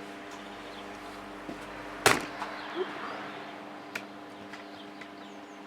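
Steady electrical hum from a TIG welding setup, with one loud sharp click about two seconds in and a fainter click near four seconds.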